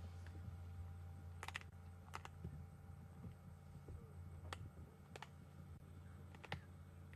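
A leopard crunching through steenbok bone while it feeds: about half a dozen sharp cracks at irregular intervals, over a low steady hum.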